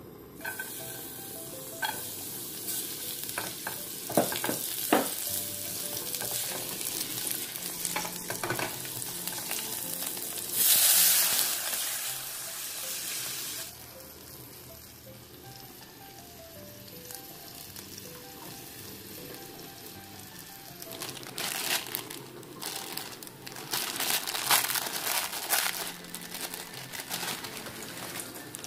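Chopped green chilies and garlic sizzling and crackling in hot cooking oil in a small saucepan. About ten seconds in comes a loud hiss as water is poured onto the hot oil. Later the water bubbles at the boil.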